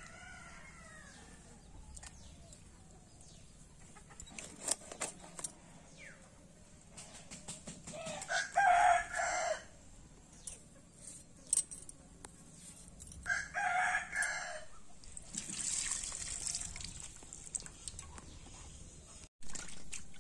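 A rooster crowing twice, each crow about a second and a half long, some five seconds apart. Between and before the crows come sharp clicks and scrapes of fish being cleaned on a boti blade.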